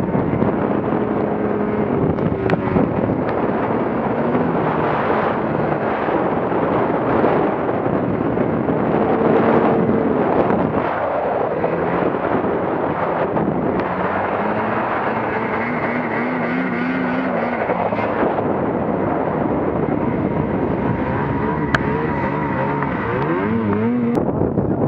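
Snowmobile engines running under load in deep snow, the pitch rising and falling as the throttle is worked, with a dense continuous rush underneath.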